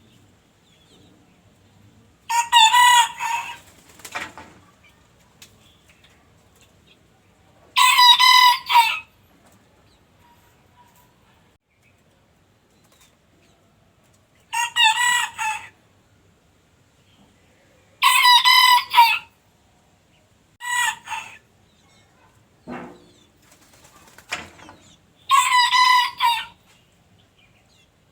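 Rooster crowing repeatedly: about five full crows of a second or so each, several seconds apart, plus one shorter crow and a few brief calls in between.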